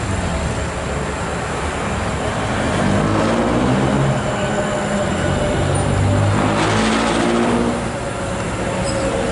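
Road traffic: motor vehicle engines running past, with a steady rumble and the engine note rising as vehicles pass about three seconds in and again near seven seconds.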